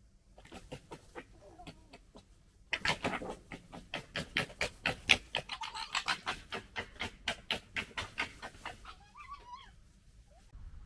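Red fox cubs gekkering: a fast stuttering chatter of throaty clicks, about five a second, soft at first and loud from about three seconds in, ending with a few short squeaky calls that bend up and down.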